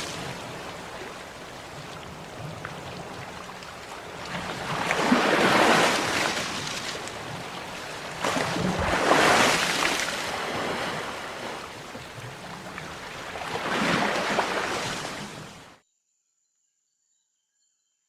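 Sea waves surging in and washing back, three swells about four seconds apart. The sound cuts off suddenly near the end, leaving about two seconds of silence.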